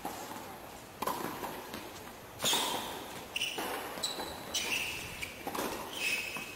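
Tennis balls struck by rackets and bouncing on a hard court during a doubles rally, a sharp hit every second or so, with short high squeaks between some of the hits.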